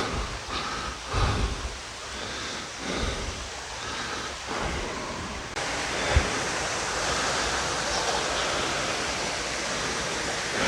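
Steady rush of falling water from a stream waterfall. About halfway through it becomes fuller and more even.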